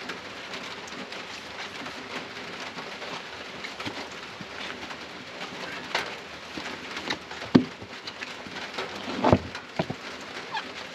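Steady rain patter with a few sharp knocks, the loudest about two-thirds of the way through.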